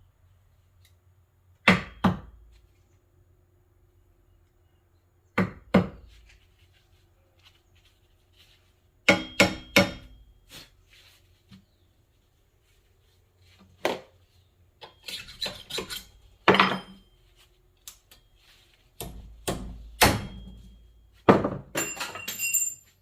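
Sharp knocks and clinks of metal tools striking metal parts, in irregular groups of two or three quick blows with quiet gaps between, and a brief metallic ring near the end.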